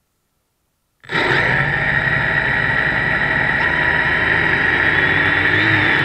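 Quadcopter's electric motors and propellers running steadily on the ground, a loud close whine with several steady tones, picked up by the drone's onboard camera. It starts suddenly about a second in.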